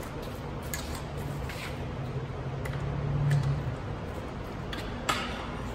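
Light clicks and clinks of hand tools and metal parts as work goes on inside the lower end of a Toyota 2JZ engine, with a sharper knock about five seconds in. A low hum swells and fades around the three-second mark.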